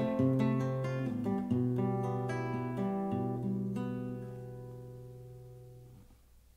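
Acoustic guitar playing the closing bars: plucked chords over bass notes, then a final chord left to ring and fade away about six seconds in, ending the piece.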